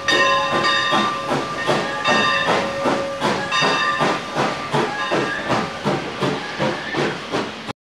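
Steam locomotive working hard, its exhaust chuffing in a fast, steady rhythm, with its steam whistle sounding in several long blasts over it. The sound cuts off suddenly near the end.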